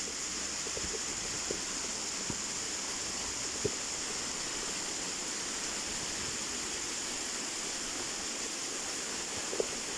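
Waterfall rushing with a steady hiss, with a few faint clicks, the loudest a little past three seconds in and near the end.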